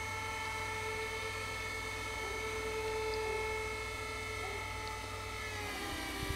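Italian TD 96/2 level crossing warning bells ringing with a steady electronic tone over the low hum of the barrier motors raising the booms. The motor hum stops shortly before the end, followed by a knock as the barriers reach the top.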